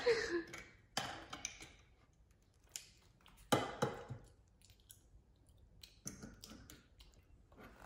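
Small plastic toy figures being handled: a few scattered light clicks and knocks against a tabletop and a glass of water, the largest about halfway through.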